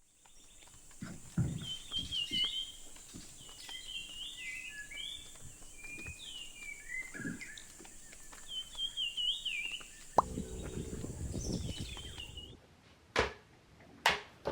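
Songbird singing in short, repeated chirping phrases over outdoor background hiss, with low rumbles of wind or handling on the microphone. After the outdoor sound cuts off, two sharp clicks follow near the end.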